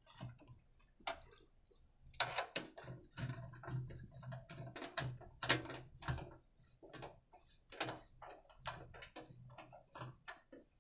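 Irregular metallic clicks and ticks of a T-handle socket wrench turning the bolts that hold the fuel tank onto a small 1 kW petrol generator.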